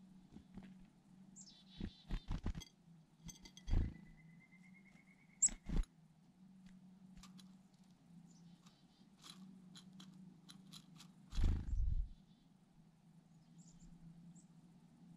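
Black-capped chickadee calling, with high falling notes and a buzzy run of call notes, then light clicking as it picks at sunflower seeds in a ceramic teacup. Several low thumps come with it, the loudest about twelve seconds in.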